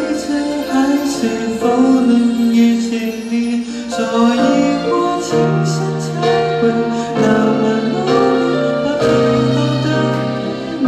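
A man singing into a handheld microphone over a recorded backing track, both amplified through the hall's PA.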